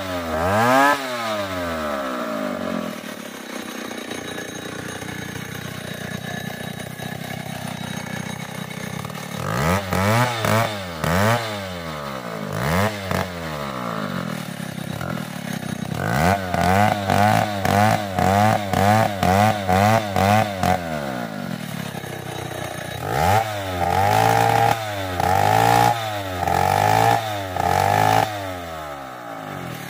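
Two-stroke gasoline chainsaw with a long bar, idling and revved up and down in repeated bursts of throttle; the longest high-rev stretch is held for about five seconds in the middle before it drops back to idle.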